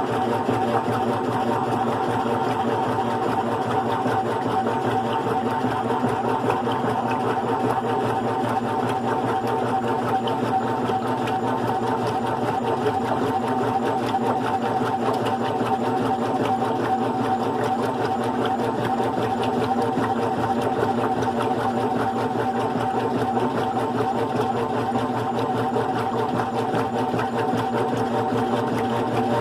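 GE Profile top-load washing machine running steadily through its cycle, its one-speed motor and agitator drive giving an unbroken mechanical hum.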